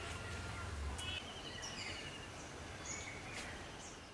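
Several birds chirping and calling, with short chirps and a trilled call, over steady outdoor background noise. A low rumble sits under the first second or so.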